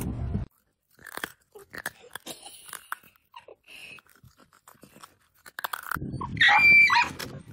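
A dog biting and crunching a hard snack held to its mouth: a scatter of short, quiet crunches. About six seconds in, a louder pitched cry comes in over outdoor background noise.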